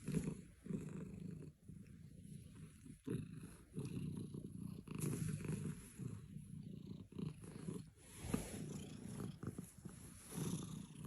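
Domestic cat purring: a low buzz that comes in repeated stretches with each breath in and out, with short breaks between.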